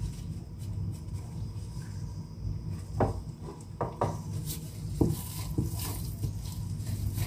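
Gloved hands working ground-meat mixture into burger patties: soft squishing and patting, with a few sharp taps about three to six seconds in, over a steady low hum.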